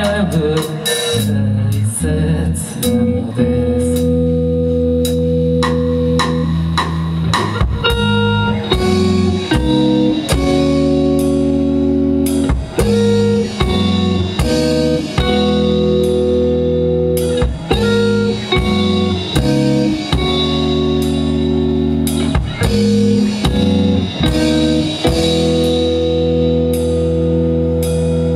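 Live rock band playing an instrumental passage: electric guitars holding sustained chords that change every second or two, over bass guitar and a drum kit keeping a steady beat. No singing.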